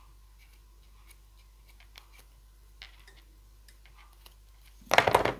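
Faint paper rustles and light ticks as die-cut paper butterfly wings are drawn over a bone folder to curve them. About five seconds in comes a short, much louder scrape or clatter, the loudest sound here.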